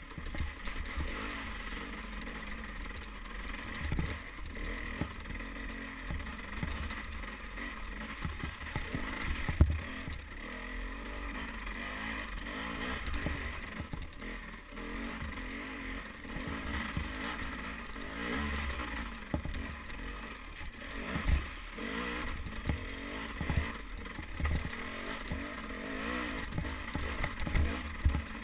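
Dirt bike engine running and revving up and down on a rough trail, with sharp thumps from bumps. The loudest thumps come about ten seconds in, around twenty seconds in and near the end.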